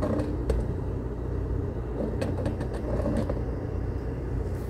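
Steady low mechanical rumble, with a few faint light clicks.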